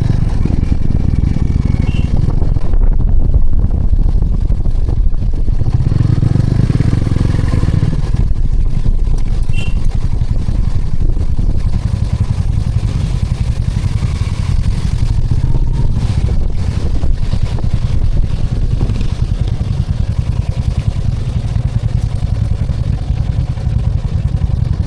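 Motorcycle being ridden, its engine running steadily under a loud, steady low rumble of wind on the microphone.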